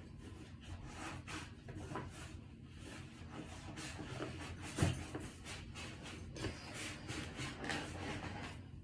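Rubbing, rustling and light knocks of baseball gear being pushed and shuffled into a stuffed equipment bag, with one louder knock a little before halfway.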